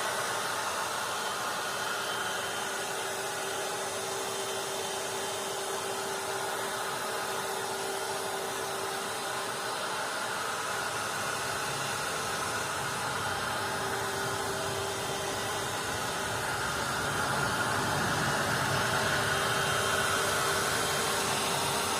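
Handheld hot-air blower running steadily, a constant rushing hiss with a fan-motor hum, blowing warm air to heat the work up in cold weather. It gets slightly louder about two-thirds of the way through.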